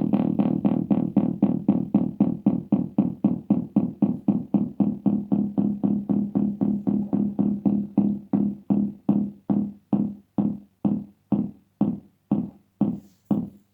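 Twin T oscillator kick-drum circuit on an electronics project kit, beating a low electronic drum pulse that rings briefly and dies away on each beat. The tempo slows steadily from about four or five beats a second to about two a second.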